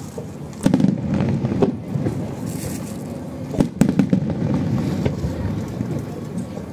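Fireworks bursting: sharp bangs about a second in and a quick cluster of them near the middle, with a low rumble carrying on between the bursts.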